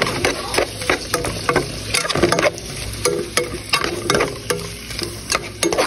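Seasoned ground taco meat sizzling in a pan while a metal spoon stirs it, scraping the pan with many short clicks and scrapes.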